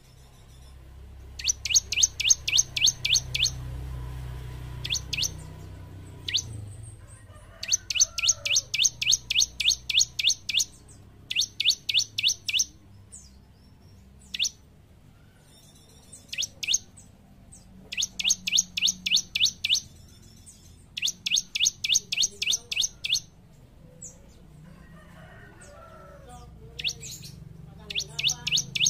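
Bar-winged prinia (ciblek) singing vigorously: fast trains of sharp, high chirping notes at about six a second, in bursts of one to three seconds repeated many times with short pauses between.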